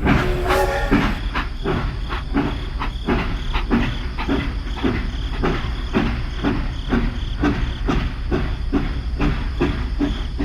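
A machine running with a regular knocking clack, just over two strokes a second, over a steady low hum.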